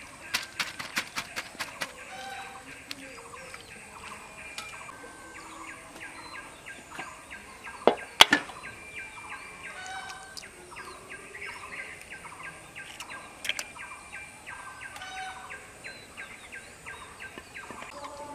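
Birds calling and chirping, in short repeated calls. A run of sharp clicks comes near the start, and a loud double click about eight seconds in.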